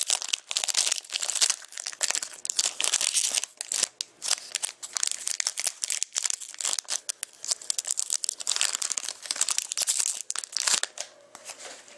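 Foil hockey-card pack wrapper crinkling and tearing as it is pulled open by hand, a dense run of crackles that eases off near the end.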